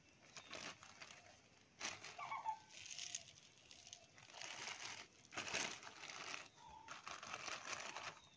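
Thin clear plastic bag crinkling in several bursts as it is handled.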